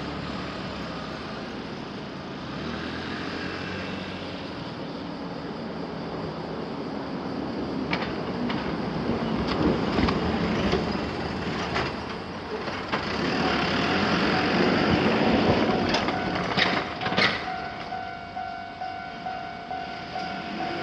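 Kintetsu Nara Line trains running over a multi-track level crossing, the noise swelling twice with sharp wheel clicks over the rail joints. In the second half a steady pitched ringing starts, and it comes through as an even, repeating warning bell as the train noise fades near the end.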